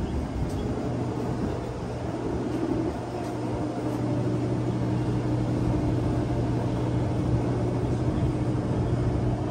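Machinery running with a steady low hum over outdoor street noise, growing a little stronger about three seconds in.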